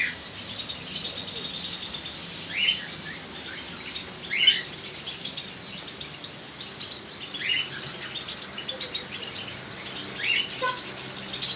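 Small cage birds chirping and twittering, with short rising call notes repeated every two to three seconds over a steady, higher chatter.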